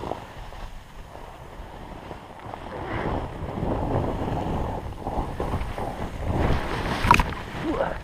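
Snowboard sliding and carving down a snow slope, the board hissing and scraping over the snow with wind rushing on the microphone. It grows louder through the middle, and a short sharp scrape comes near the end.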